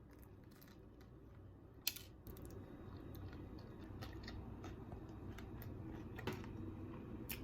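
Faint biting and chewing of a buttered bagel topped with bacon bits, with scattered soft clicks and one sharper click about two seconds in.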